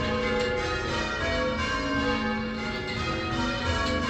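Change ringing on the Swan Bells, the original bells of St Martin-in-the-Fields: the tower bells strike one after another in a steady, even rhythm, their ringing tones overlapping. The band is ringing call changes.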